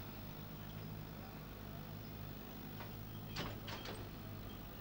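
Farm tractor engine running steadily at low revs as it slowly reverses a trailer, with three sharp clacks in quick succession about three and a half seconds in.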